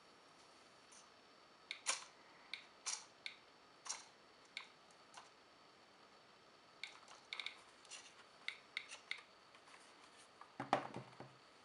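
DIY Geiger counter clicking at an irregular, sparse rate, each click a detected count, with a closer run of clicks about seven to nine seconds in. Near the end comes a louder knock from the plastic housing being handled.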